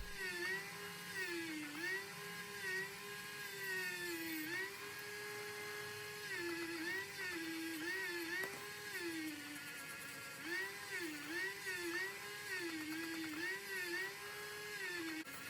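A small motor whirring at high speed, its pitch dipping and recovering again and again as load comes on and off.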